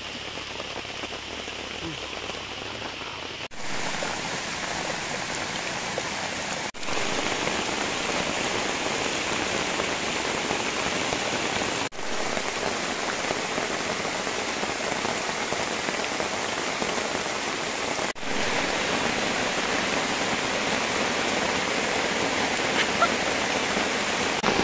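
Heavy rain falling on tropical forest canopy and undergrowth: a steady hiss that grows louder after the first few seconds, broken by a few brief dropouts.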